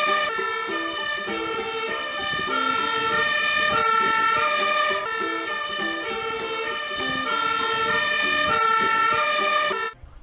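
Toy fire truck's electronic sound module playing a siren tune: electronic tones stepping between pitches in a repeating pattern, stopping shortly before the end.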